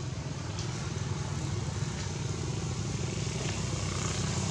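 A motor vehicle's engine running with a steady low rumble, slowly getting louder.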